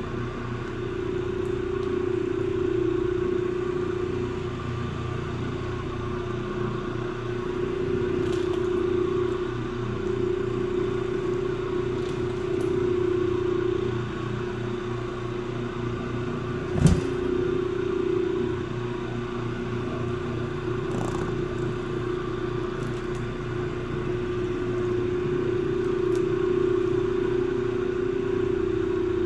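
Electric rotary floor machine scrubbing carpet with a pad: a steady motor hum that rises and falls in level every few seconds as it is worked over the carpet, with one sharp knock about seventeen seconds in.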